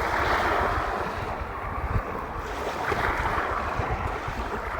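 Wind buffeting the microphone in uneven low rumbles over a steady rush of sea water and surf.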